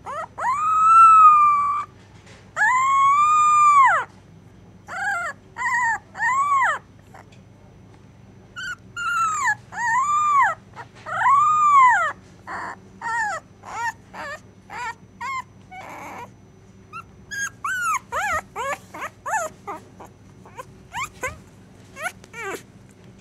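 Very young puppy whimpering and crying in its sleep during a bad dream. Two long whines rise and fall at the start, then come shorter cries, and a quick run of short yips in the last few seconds.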